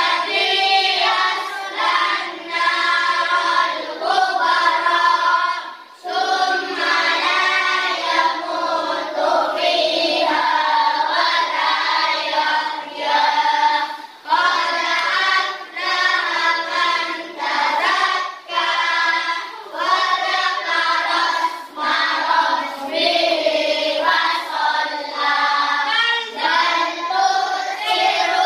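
A class of children singing together in unison, continuous phrase after phrase with only brief breaks.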